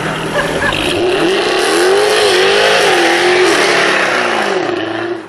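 Jaguar F-Type R's supercharged V8 revving hard. The revs climb about a second in, then hold high and waver up and down over a loud hiss, and the sound drops away abruptly near the end.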